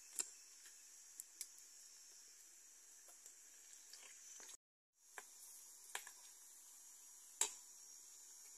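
Banana dough balls deep-frying in hot oil in an iron wok: a faint, steady sizzle with a few sharp clicks and pops, the loudest about three-quarters through. The sound cuts out for a moment about halfway.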